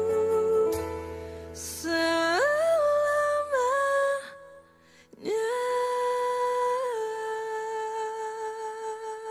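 Music for a logo sting: held, humming tones with a swish about one and a half seconds in, then the notes step up in pitch. After a short drop-out near the middle, one note swoops up and is held, slowly fading with a slight wobble.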